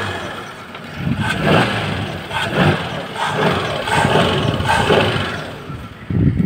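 Audi Q7 3.6 VR6 FSI petrol engine running, with a metallic knock from the area of the high-pressure fuel pump that remained after new timing chains, which the owner puts down to a worn fuel pump cam follower.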